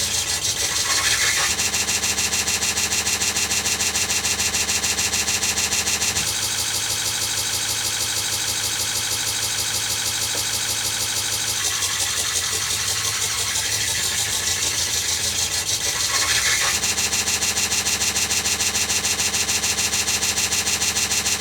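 Oscilloscope-art audio from an Amiga: the left and right channels trace an animated flower picture for a vectorscope. It is heard as a harsh, steady buzz rich in overtones, with a fast even pulse, and its tone shifts every few seconds as the animation moves on.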